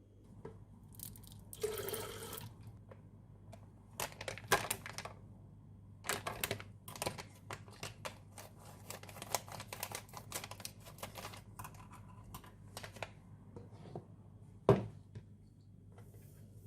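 Close handling sounds of food being prepared: a brief rustle or tear, then a run of irregular small clicks, taps and crinkles, and one sharp knock near the end.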